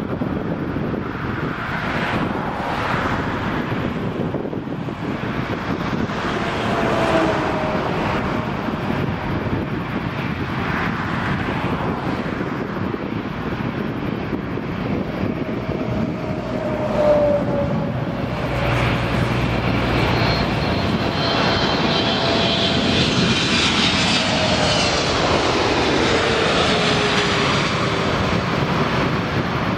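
Boeing 757-200 twin jet engines at takeoff power: a steady roar through the takeoff roll and climb-out, with a whine that slowly falls in pitch in the second half as the aircraft climbs past.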